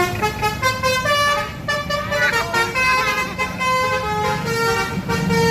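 Bus's multi-tone 'basuri' telolet horn playing a quick melody of short notes that jump from pitch to pitch, over the low rumble of the bus engine.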